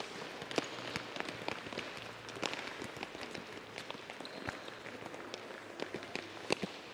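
Several children dribbling soccer balls on an indoor gym floor: a scatter of irregular taps from ball touches and quick footsteps, with one sharper knock near the end.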